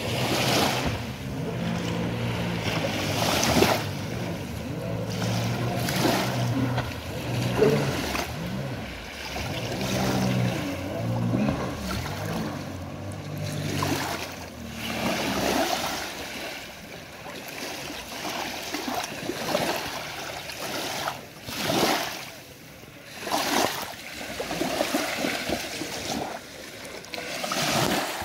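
Jet ski engine running with a steady hum across open water, fading out about halfway through. Gusts of wind and rushing water noise swell and ebb throughout.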